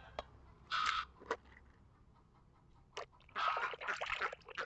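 Water sloshing and splashing in a tub as a hand swishes toys through muddy water: a few short splashes, then a longer bout of swishing with small splatters in the second half.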